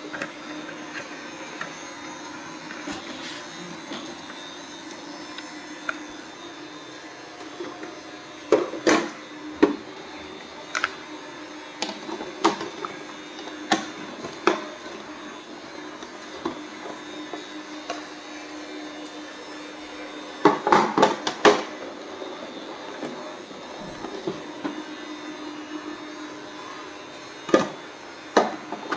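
Robot vacuum cleaner running with a steady motor hum, broken by irregular knocks and clicks and a brief burst of clattering about two-thirds of the way through.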